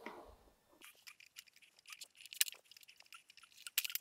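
Hands handling butcher's string and a frenched raw lamb rack on a wooden cutting board: a scatter of faint, light clicks and scratches at irregular intervals, starting about a second in.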